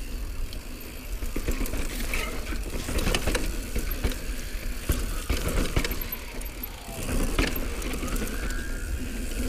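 Mountain bike ridden fast down a dry dirt singletrack. Wind rushes over the mic, and the tyres run over loose dirt while the frame and chain rattle with frequent clicks and knocks.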